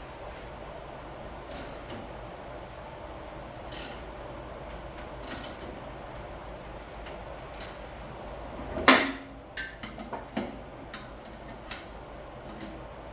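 Ratchet wrench clicking in short strokes as the blade bolts are run in on a riding-mower deck, with one loud metallic knock about nine seconds in and a few quicker clicks after it.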